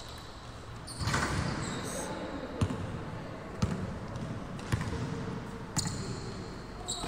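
A basketball being dribbled on an indoor court, thudding about once a second, in the echoing space of a large sports hall.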